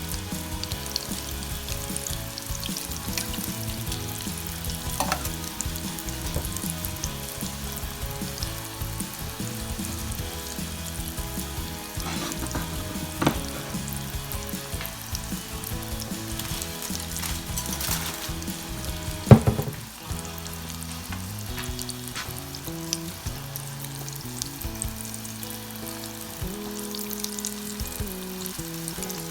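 Breaded okra deep-frying in hot oil, sizzling and crackling steadily. A few sharp knocks come through, the loudest about 19 seconds in.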